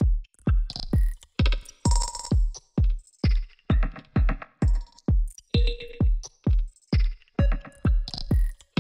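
Electronic dance music: a deep drum-machine kick on every beat, a little over two a second, with short synth stabs and hissy hits between the kicks, each sound cut off sharply so the track pulses.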